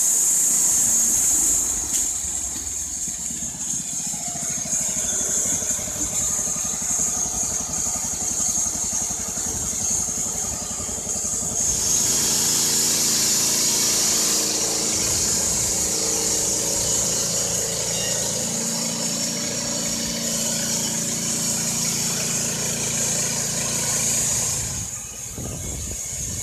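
Wood-Mizer LT15 portable band sawmill cutting a pine log: its Kohler Pro-15 petrol engine running steadily under load, with a high hiss from the band blade in the wood. It gets a little fainter near the end.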